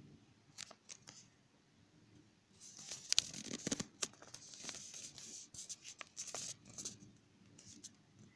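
Scratchy, crackling rustle of the recording phone being handled close to its microphone: a few sharp clicks about half a second in, then a longer, denser patch of scratching from about two and a half to seven seconds in.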